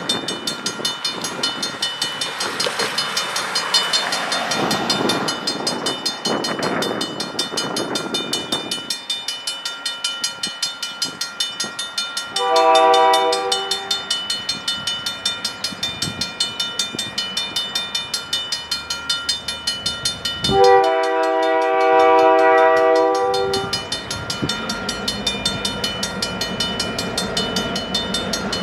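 Railway grade-crossing warning bell ringing steadily with rapid, even strokes. A multi-note train horn sounds twice as the train approaches, a short blast about twelve seconds in and a longer one about twenty-one seconds in. The first several seconds carry the noise of a road vehicle crossing the tracks, and a low locomotive engine hum builds toward the end.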